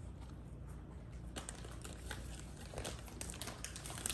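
Quiet, scattered clicks and crinkling that grow busier after the first second: treats and their packaging being handled while huskies move about on a tile floor.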